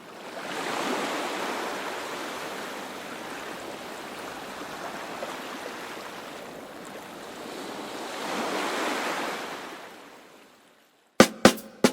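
Ocean waves washing in, swelling twice and fading away. Sharp percussive hits of music come in near the end.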